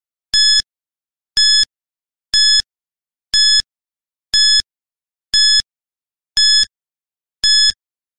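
Countdown timer beeping once a second, eight short, bright electronic beeps in a row with silence between, ticking off the seconds of a ten-second countdown.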